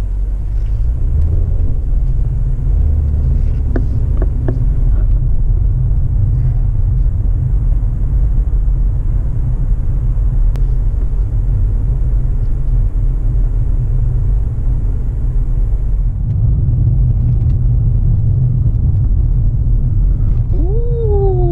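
Steady low road and engine rumble inside the cabin of a car driving along. Near the end a short tone slides downward in pitch.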